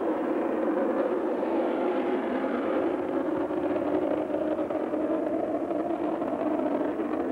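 Military jet's engines running on the runway: a steady, even rushing noise that holds the same level throughout.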